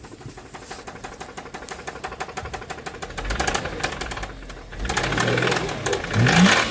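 Subaru Tribeca flat-six engine running with a fast, even clatter of knocks (tyk-tyk-tyk), louder as the throttle is opened about three seconds in and again about five seconds in. The owner places the knock on the right side of the engine bay, where the battery is.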